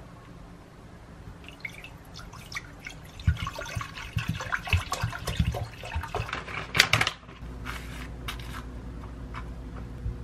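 Water poured from a plastic bottle into a saucepan, splashing for several seconds and stopping sharply about seven seconds in. A steady low hum follows.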